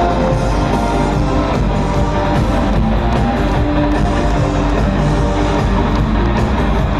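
Rock-style band playing an instrumental passage with no singing: strummed electric guitar over bass and drums, keeping a steady beat.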